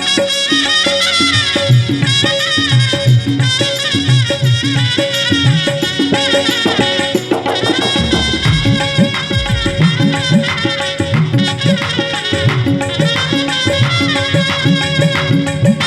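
Instrumental interlude of a live Indian devotional bhajan: a wavering lead melody over a steady held drone, with a hand-drum rhythm underneath.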